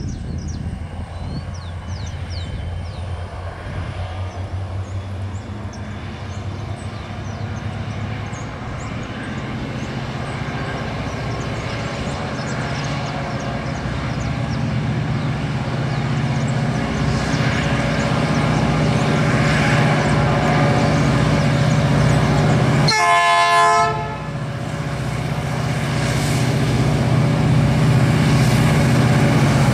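Two EMD SD40 diesel-electric locomotives, each with a 16-cylinder two-stroke EMD 645 engine, pulling a freight train under power as it approaches. The deep engine drone grows steadily louder. Late on, the air horn gives a single blast about a second long.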